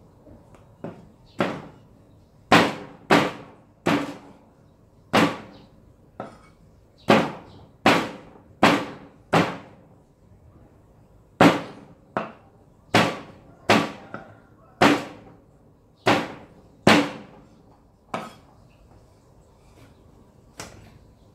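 A Chinese cleaver chopping raw pork on a round wooden chopping block: sharp knocks of the blade striking the wood, each with a brief ring. The chops come every half second or so, with a short pause about halfway through and fewer near the end.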